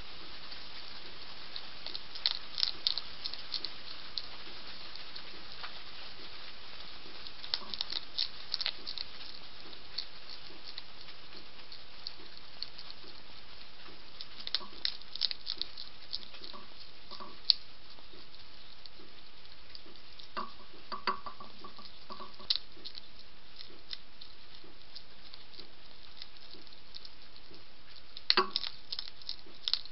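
A European hedgehog crunching dry kibble from a dish, in short clusters of sharp crunches every few seconds over a steady hiss.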